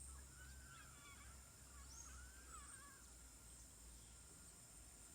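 A faint bird call that wavers in pitch, from about half a second to three seconds in, over a steady high drone of insects and a low rumble.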